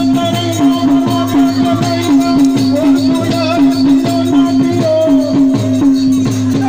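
Live Gujarati folk-theatre dance music: a drum beating a steady rhythm a little over twice a second, with a high rattling percussion keeping time and a held melody line over it.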